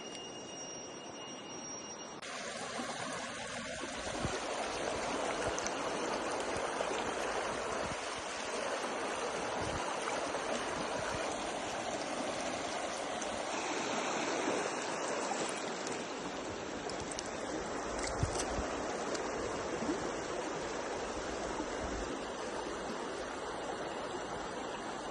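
Water of a stream or river rushing steadily, with a few faint ticks over it; it grows louder about two seconds in.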